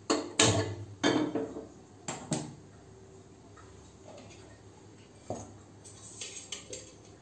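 Empty steel kadhai set down and shifted on a gas stove's metal pan support as the burner is lit, metal clanking several times in the first two and a half seconds, then a few faint knocks and ticks later on.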